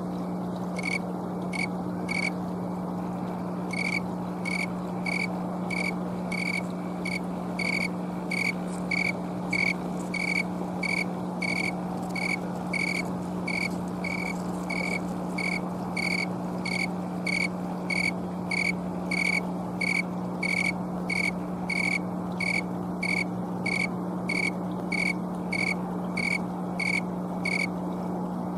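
Snowy tree cricket (Oecanthus fultoni) chirping by rubbing its raised wings together: a steady, evenly spaced series of high, pure chirps, about two a second. The chirp rate is set by the air temperature. A steady low hum runs underneath.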